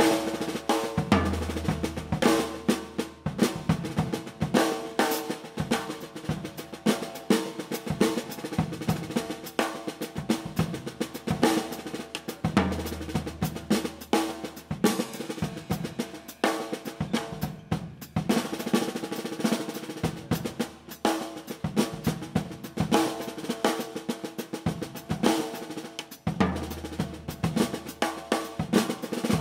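Drum kit played in a busy groove of snare and bass drum hits with rolls, over a backing track whose long low notes come in three times.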